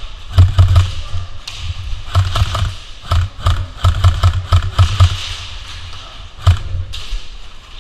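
Airsoft guns firing in short rapid bursts, several shots a second, each a low thud with a sharp crack. The bursts come in runs through the first five seconds, then one single shot about six and a half seconds in.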